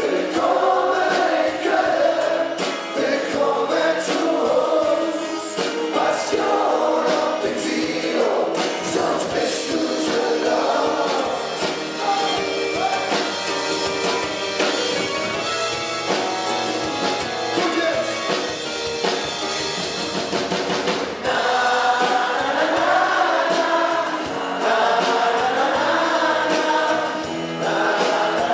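Live band playing with a group of voices singing together over acoustic guitars, bass and drums; the music gets louder about three quarters of the way through.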